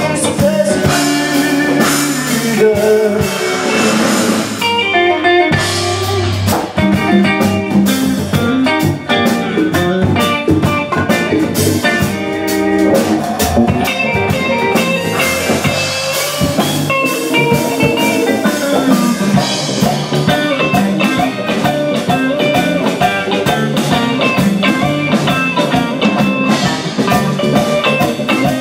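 Live band playing an instrumental passage: electric and acoustic guitars over a drum kit and hand percussion.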